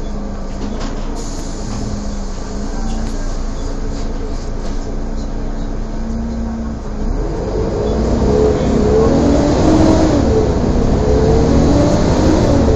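Volvo Alexander ALX400 double-decker bus running with a steady low hum. About seven seconds in it pulls away: several whining tones rise and fall and the sound gets louder. This whine is what earns the bus the nickname 'Hoover'.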